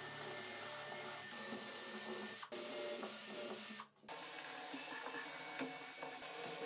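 Cordless drill boring pilot holes for screws into a fir board, running in two stretches with a short stop about four seconds in.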